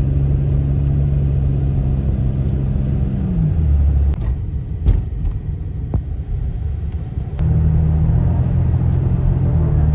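A motor vehicle's engine running with a loud, steady low rumble. Its pitch drops about three and a half seconds in and comes back up near the end, with a few sharp clicks in between.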